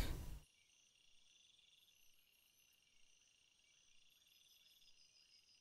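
Faint crickets chirping steadily, a night-time background.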